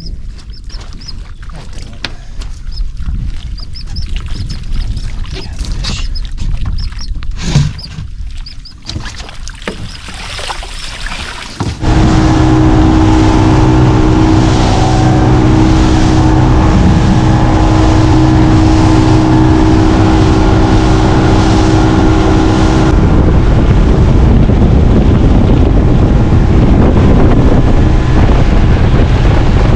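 A Yamaha 150 outboard driving a center-console boat at cruising speed, a loud steady run that comes in suddenly about twelve seconds in, with rushing wind and water from the wake mixed in more heavily over the last several seconds. Before that, quieter water and handling sounds with a few sharp knocks while a cast net is worked from the bow.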